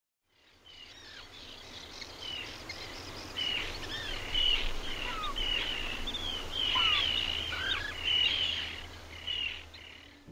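Several birds singing and calling: quick, high chirps and whistled notes that slide up and down, over steady outdoor background noise. The sound fades in from silence at the start.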